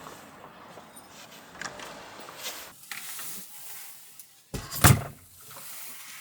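A few light knocks, then one loud thump a little before five seconds in.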